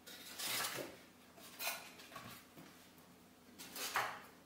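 Cardboard and foam packing pieces rustling and scraping as they are handled and lifted out of a printer's shipping box, in several short bursts, the loudest near the end.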